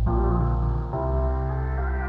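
Background music: held synth chords over a strong bass, changing chord about a second in.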